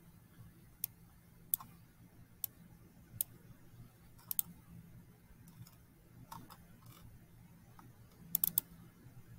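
Computer mouse clicking: single clicks and double-clicks a second or so apart as folders are opened in a file dialog, with a quick run of three clicks near the end, over a faint steady low hum.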